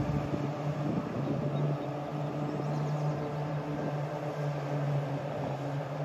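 Steady low engine hum over a faint background hiss.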